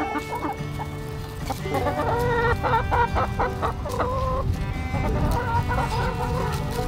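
A flock of backyard laying hens clucking, busiest in the middle stretch, over background music.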